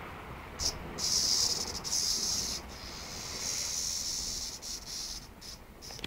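Cicada buzzing in harsh high-pitched bursts, starting about half a second in and breaking off and restarting several times: the distress buzz of a cicada being pawed at by kittens.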